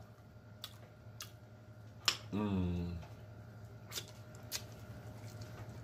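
Close-miked mouth noises of a person eating meat with his hands: scattered sharp lip smacks and wet clicks, the loudest about two seconds in, followed by a short falling 'mm' hum of the voice.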